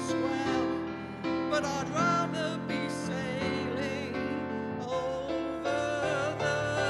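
A woman singing a slow musical-theatre song solo over instrumental accompaniment, her melody gliding between held notes.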